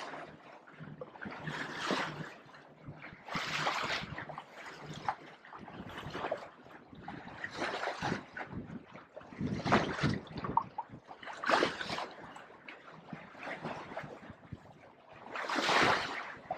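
Water splashing and hissing along a sailing yacht's hull as it moves through a small swell, coming in irregular surges every second or few.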